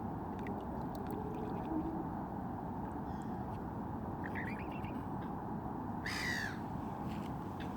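Wild birds calling over a steady background rush: a few short calls about four seconds in, then one loud, harsh, falling call about six seconds in.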